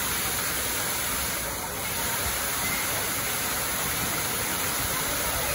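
Water falling in a continuous curtain from an overhead splash-pad fountain onto a shallow pool: a steady rushing splash.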